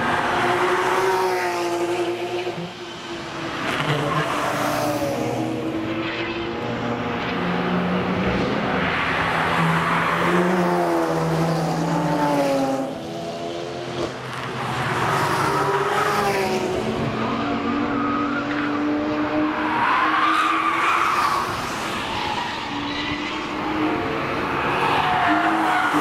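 Several cars driving hard through a race-track corner one after another, a Porsche 911 GT3's flat-six first, each engine note rising and falling as it revs and shifts. Tyres squeal at times.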